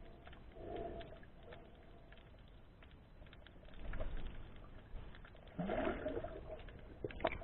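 Muffled underwater sound picked up by a submerged camera in the sea: a low water rush with scattered clicks, and a couple of short hooting sounds, one about a second in and a longer one near six seconds.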